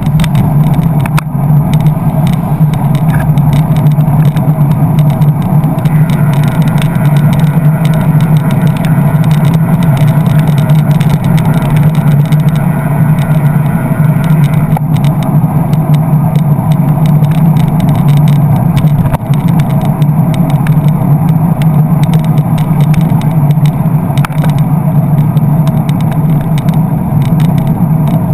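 Steady, loud low rumble of road and wind noise picked up by a handlebar-mounted camera on a bicycle rolling alongside queued traffic, with the engines of nearby cars, vans and a bus mixed in.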